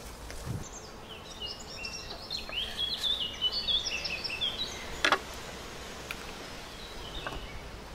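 A songbird singing a rapid string of varied high chirping notes for about four seconds, over steady outdoor background noise. A sharp click about five seconds in, a lighter one near the end, and a soft low thump just after the start.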